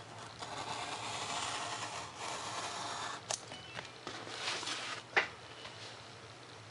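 Hobby knife drawing through paper plans and foam board along a plastic ruler, a scratchy scraping for about three seconds. It is followed by a few sharp clicks and shorter scrapes as the ruler is moved and set down, the loudest a tap about five seconds in.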